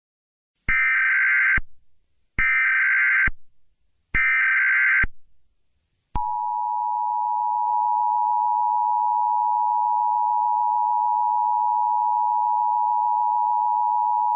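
Emergency Alert System broadcast tones: three SAME header data bursts, a buzzing warble of about a second each, then the EAS two-tone attention signal, a steady dual tone held for about eight seconds before cutting off. Together they mark the start of an emergency alert message.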